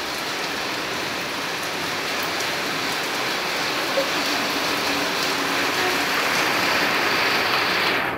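Steady rain pouring down, growing a little louder toward the end, then falling away sharply right at the end.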